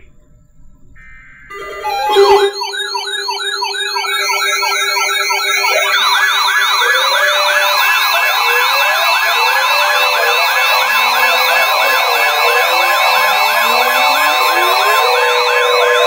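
Several NOAA weather radios alarming at once as a severe thunderstorm warning comes in. A brief buzzy burst comes about a second in, then the alarms start: many overlapping, fast-warbling siren tones with steady tones underneath, and more radios join over the next few seconds.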